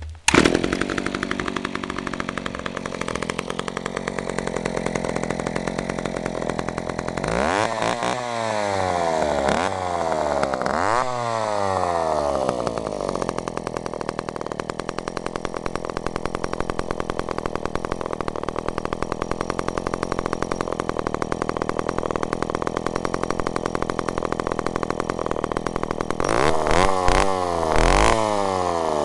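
John Deere 30 (Echo CS-302) two-stroke chainsaw running well: a steady idle, revved up in a few quick blips from about seven to twelve seconds in, and blipped again a couple of times near the end.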